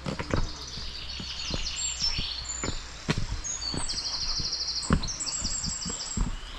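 Songbirds singing, with several fast trilling phrases, over the steps of someone walking at about two steps a second.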